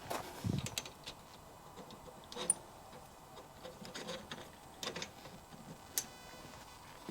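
Frame pieces and clamps of a table frame clicking and knocking as they are handled and fitted together: light irregular clicks, with one duller knock about half a second in.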